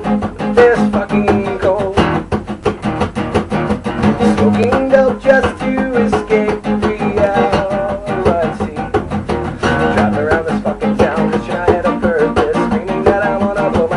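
Recorded band music led by guitar with bass guitar, playing a fast, even rhythm.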